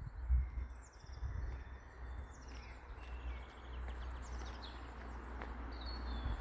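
Several small birds singing, with short chirps and trills overlapping throughout, over a low rumble.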